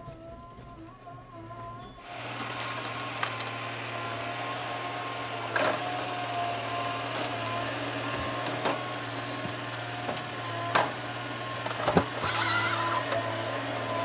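Wheeled forestry harvester working. For the first two seconds it is muffled, with a steady whine. From about two seconds in the engine noise is louder, with sharp knocks and cracks as the harvester head grips and fells a tree, and a louder rushing burst near the end.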